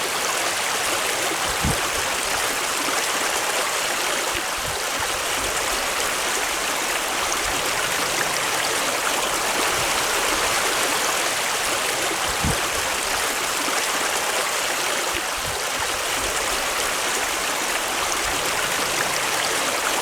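Fast spring river rushing and babbling steadily over its bed, with a couple of soft low thumps.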